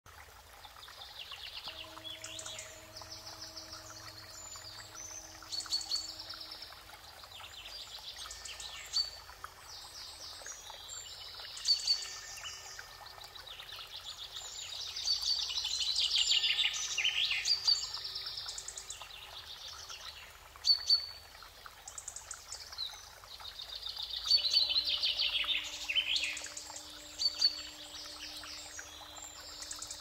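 Mixed chorus of birds singing and calling: overlapping high chirps, trills and whistled notes, with a few loud, sharp calls every few seconds.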